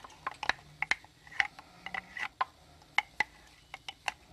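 Irregular light clicks and taps of a spoon against the grinder jar as thick green masala paste is scooped out onto raw chicken wings, about fifteen sharp knocks in all.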